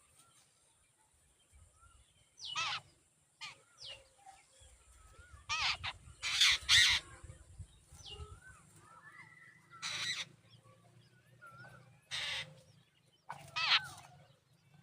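Jungle babblers giving repeated harsh calls, about eight separate calls, the loudest a little past the middle, with faint short chirps in between.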